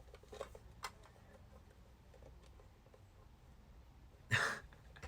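Faint clicks of fingers working at the lid of a metal Pokémon card mini tin, then about four seconds in a short vocal huff of effort. The lid won't come off because plastic film is still wrapped around the tin.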